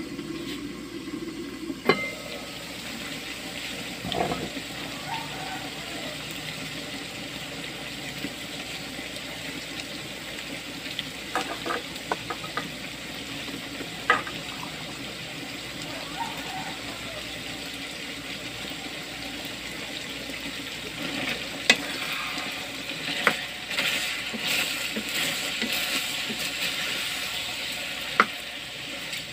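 Pork pieces frying in a metal pan, a steady sizzle with a few sharp clinks of metal on the pan. In the last third a spatula stirs the meat, and the sizzle and scraping grow louder.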